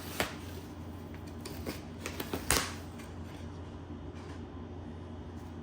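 Handling noises as a table runner is laid out on a table: a few short, sharp rustles and taps, the loudest about two and a half seconds in, over a steady low hum.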